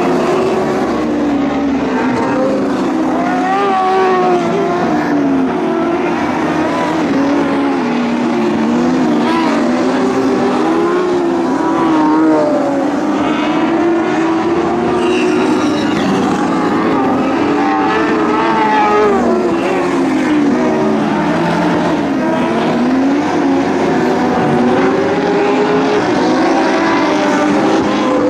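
Several Lightning Sprint race cars running together on a dirt oval. Their engines overlap, each pitch rising and falling again and again as the drivers accelerate and lift around the track.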